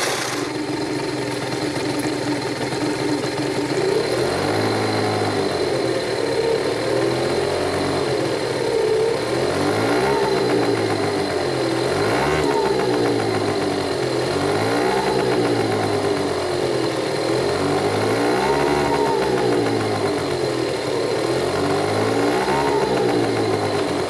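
Scooter engine running on its centre stand in a test run after the variator cover has been refitted: steady idle at first, then from about four seconds in it is revved up and down over and over, roughly every two seconds. The owner judges that it seems to run normally now.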